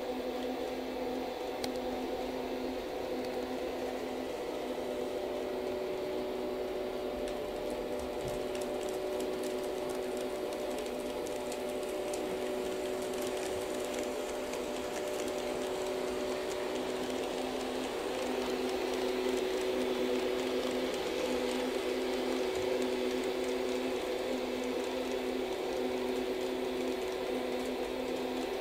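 HO-scale model train running on the layout track: a steady electric hum with fine, quick clicking of the wheels over the rail joints, the clicking setting in after several seconds.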